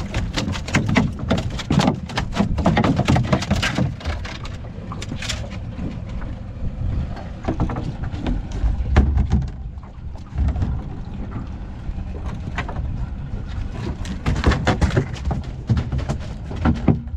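Freshly landed dorado (mahi-mahi) thrashing on the fiberglass floor of a small boat: a rapid run of slaps and knocks. The knocking eases off midway and picks up again near the end, over a steady low rumble.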